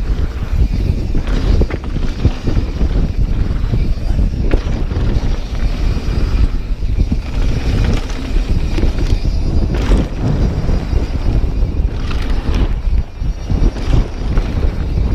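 Mountain bike running down a wet trail: wind buffeting the microphone, tyres on wet dirt, and the bike rattling with frequent knocks over bumps.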